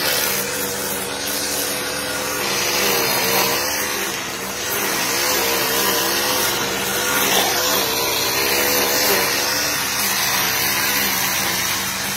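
Petrol string trimmer (brush cutter) engine running at speed, its pitch wavering slightly as it is worked.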